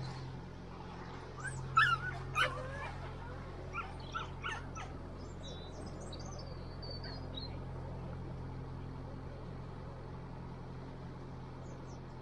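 Narrowboat's diesel engine running steadily. Two sharp animal calls come about two seconds in, followed by a few fainter calls and some high bird chirps.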